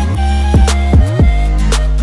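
Background music with a steady beat: deep bass notes and drum hits that drop in pitch, with a sharp hit about every half second.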